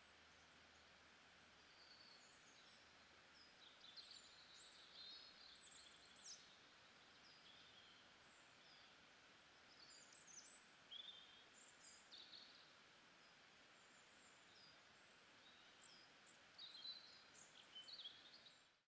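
Faint outdoor ambience with small birds chirping on and off: short, high chirps come in little clusters over a soft steady hiss, busiest about four to six seconds in and again near the end.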